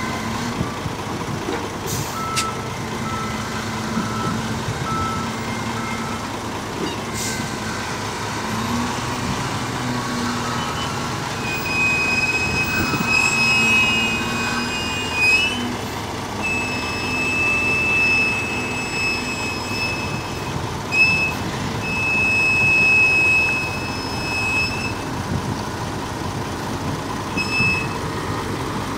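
Heavy diesel machinery running steadily at a load-handling site, a truck and a hydraulic crane at work. From about twelve seconds in, a high-pitched whine starts and stops several times.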